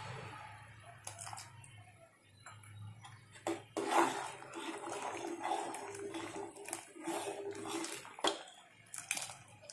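Tamarind water poured from a steel bowl into a pot of sambhar, then a steel ladle stirring the thin lentil curry, sloshing and clinking against the steel pot from a few seconds in.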